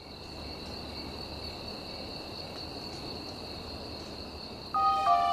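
Quiet opening of an R&B song: a steady high-pitched ambient trill over a low hiss, with soft sustained keyboard-like notes coming in near the end.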